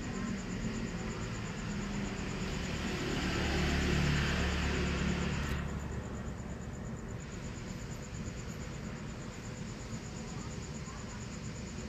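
Steady background noise with a low rumble that swells to its loudest about four seconds in and fades away by about six seconds, over a faint steady high whine.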